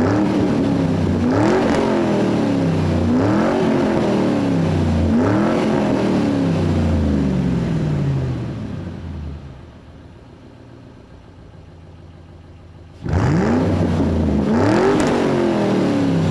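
A car engine revved over and over, each rev rising quickly and sinking back, roughly every two seconds. It fades out about halfway through and, after a few seconds' lull, cuts back in suddenly.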